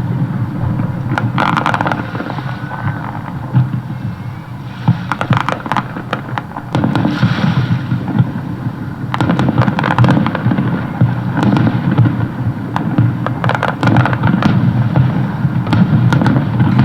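Aerial fireworks show: clusters of sharp crackling and bangs from bursting shells every few seconds, over a continuous low rumble of booms.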